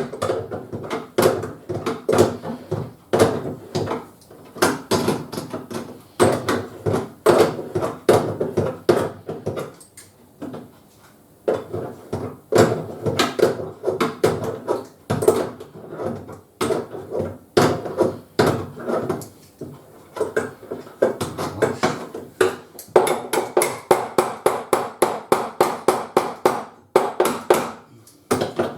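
Repeated clinks and knocks of plumbing fittings and hand tools being handled and tightened while connecting a hand-wash water heater, with a run of fast, evenly spaced clicks near the end.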